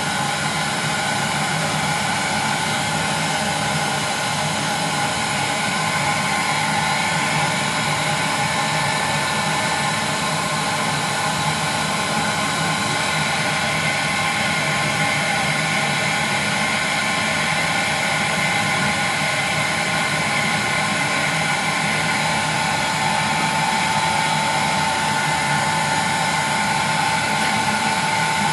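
Electric heat gun running steadily: an even rush of blown air with a steady motor whine through it.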